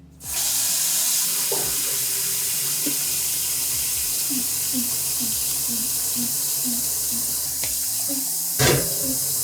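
Kitchen tap turned on and running steadily, a loud even rush of water, with a brief knock near the end.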